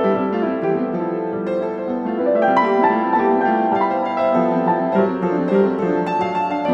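Piano music playing, a steady run of notes.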